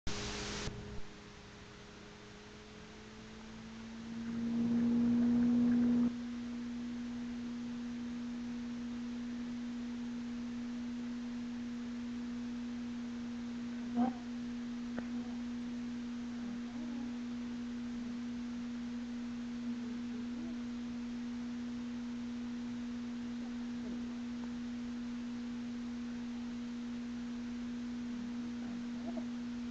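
A steady humming tone a little above 200 Hz with a fainter overtone. It rises slightly and gets louder for a couple of seconds about four seconds in, then holds steady. There is a short burst of noise at the very start.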